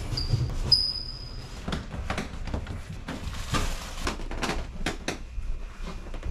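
A large boxed indoor exercise bike being shifted and dragged: irregular knocks, scrapes and clatter of the heavy cardboard box, with a brief high-pitched squeal about a second in.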